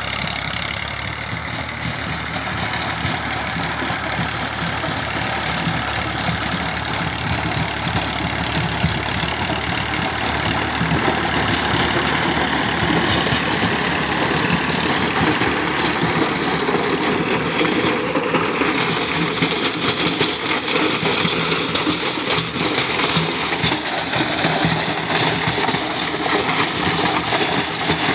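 Massey Ferguson 240 tractor's three-cylinder diesel engine running steadily under load, driving a rotavator whose blades churn through dry soil. The sound grows louder from about ten seconds in as the tractor comes close.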